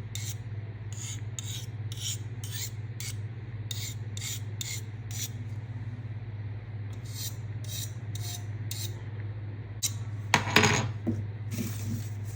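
Steel knife blade being stroked back and forth on a wet sharpening stone, about two short rasping strokes a second, pausing briefly midway. A louder scrape with a brief ring comes near the end.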